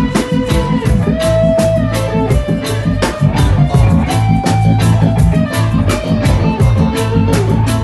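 A band playing an instrumental passage of a song: a steady beat with a moving bass line and held melody notes above it, no singing.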